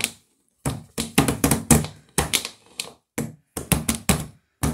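A rapid, irregular series of sharp taps and knocks, several a second, with short pauses between clusters.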